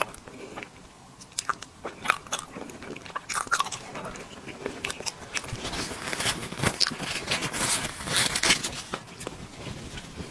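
A person chewing and eating tiramisu cake close to the microphone: wet mouth clicks and chewing, busiest and loudest from about six to nine seconds in.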